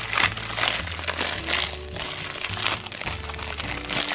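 Thin plastic tablecloth crinkling and rustling in a quick, irregular run as hands unfold and handle it.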